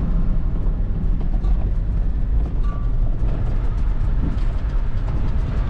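Toyota Prado driving: a steady, loud rumble of engine and tyre noise on the track.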